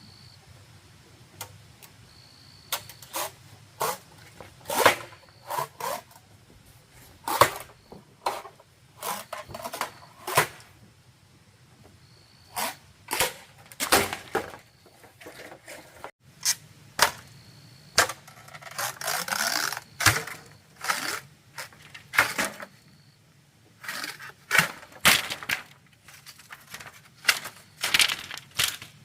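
Irregular series of sharp knocks and strikes, often several in quick succession, with a short scraping rasp about nineteen seconds in.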